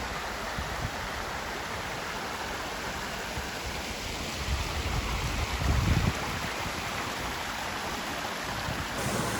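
Brook rushing over rocks: a steady rush of running water, with a short low rumble about five to six seconds in.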